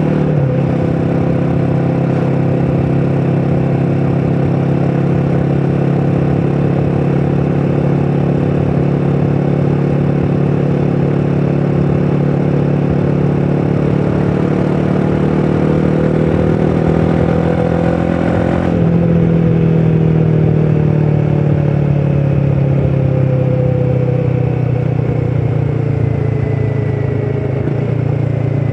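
Royal Enfield Himalayan 450's single-cylinder engine and stock exhaust running steadily under load at cruising speed, around 5000 rpm. The engine note slowly climbs, changes abruptly about two-thirds of the way through, then slowly drops.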